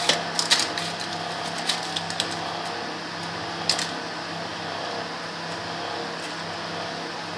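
Scattered light clicks and taps of a spoon spreading melted chocolate over crisp biscuits in a lined tin, with the plastic lining rustling, over a steady low hum.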